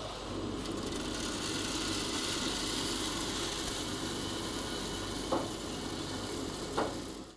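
Freshly roasted coffee beans dropping out of a small drum roaster's door into its cooling bin, a steady rushing rattle as the stirring arm turns them over the cooling fan. This is the drop that ends the roast once the colour matches the reference.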